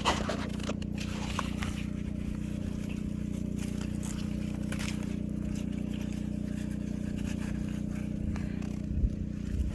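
Scattered snaps and rustles of bean plants as pods are picked by hand, over a steady low machine hum.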